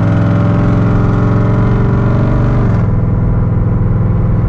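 Dodge Dakota R/T's 5.9-litre V8 engine and exhaust heard from inside the cab while driving, pulling steadily under throttle. About three seconds in it eases off, as if the throttle is lifted.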